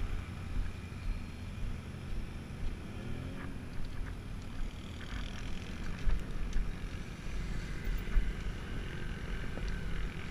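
ATV engine idling steadily, a low rumble, with a few light knocks.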